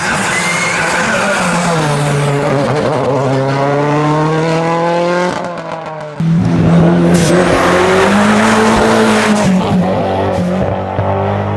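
Hillclimb race car engine revving hard, its pitch climbing steadily through a gear before falling away. About six seconds in the sound cuts abruptly to another race car engine held at high revs.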